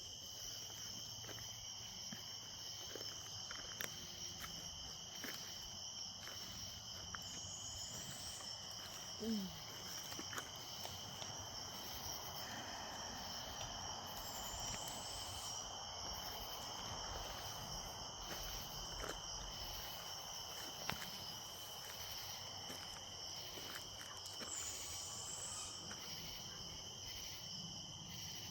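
Night insect chorus of crickets or katydids: a steady, unbroken high-pitched drone in two pitches. Scattered faint clicks and steps, and one brief louder sound about nine seconds in.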